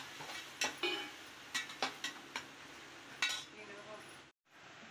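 A metal slotted spatula scraping and clinking against the sides and bottom of an aluminium pressure cooker as an onion, tomato and ginger-garlic masala is stirred and fried, with a faint sizzle underneath. There are about half a dozen sharp scrapes, and the sound cuts out briefly near the end.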